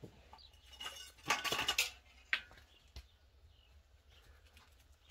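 Garden hand tools being handled and moved about on wooden shelving: a few sharp knocks and a short burst of metallic rattling about a second and a half in, then quiet.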